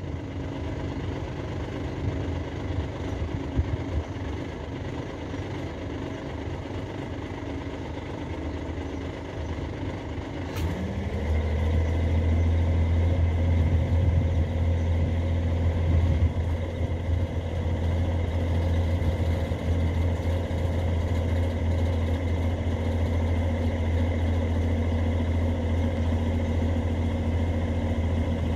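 Truck engine idling. About ten seconds in there is a click, the engine note rises, and it settles into a louder, steady low hum as the tipper's hydraulic hoist is engaged and begins lifting the body.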